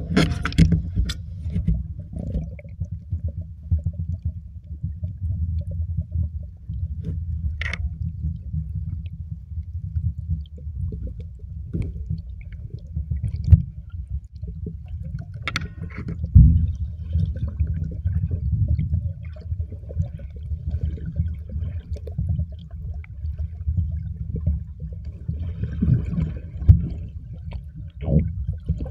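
Muffled underwater sound: a low, steady rumble of moving sea water heard through a camera underwater, with scattered knocks and faint crackles.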